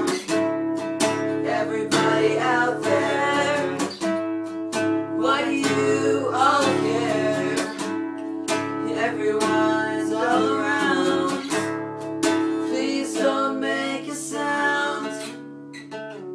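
Acoustic guitar strumming chords, with a voice singing over it at times and no drums; the playing dies away near the end.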